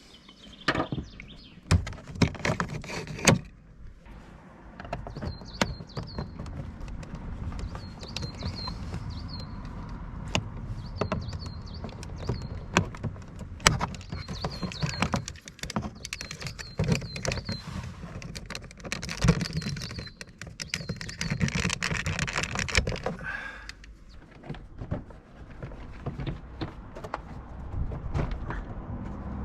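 Hand work on a car's plastic door trim: irregular clicks, knocks and scraping as screws are undone and the door card is pried off its clips, with several sharp knocks in the first few seconds.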